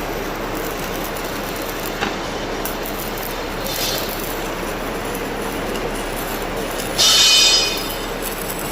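Stick (shielded metal arc) welding arc crackling steadily, with a brief loud high-pitched screech about seven seconds in.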